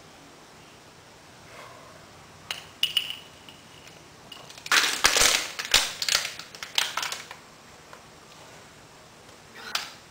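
Thin plastic water bottle crackling and crinkling as it is squeezed and collapses while being chugged: a couple of sharp clicks, then a dense burst of crackles lasting about two and a half seconds, and one more crackle near the end.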